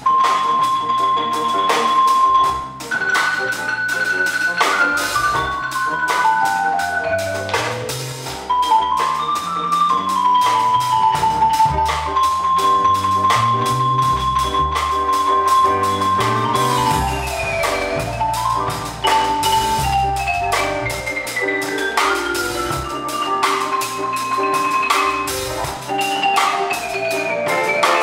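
Live trio of marimba, piano and drum kit playing. The marimba carries melodic lines with repeated descending runs of notes, over steady drum and cymbal strokes.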